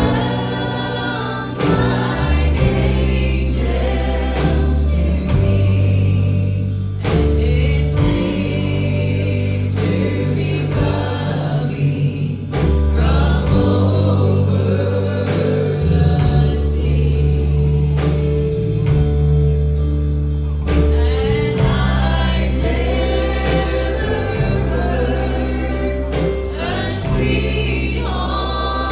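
Gospel song: several voices singing in harmony over a band with held bass notes.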